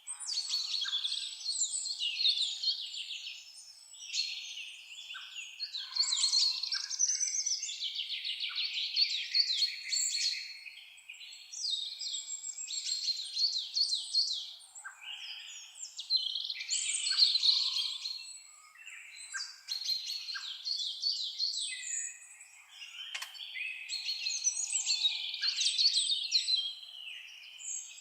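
Several songbirds singing at once, a dense run of overlapping high chirps, trills and warbled phrases that eases into brief lulls every few seconds.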